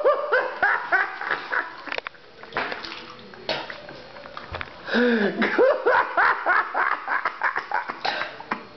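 A person laughing hard in two bouts of quick, rising 'ha' bursts, one at the start and one about five seconds in, with a quieter, breathier stretch between them.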